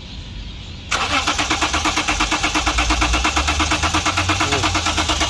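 Lexus IS 300 engine cranking on its starter motor: a sudden start about a second in, then a fast, even, rhythmic churn that never catches. The car will not start because no fuel pressure is reaching the engine.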